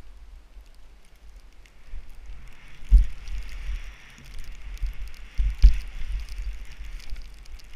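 Skis hissing through powder snow, louder through the middle, over a low wind rumble on the helmet camera's microphone, with two sharp thumps about three seconds in and again near six seconds.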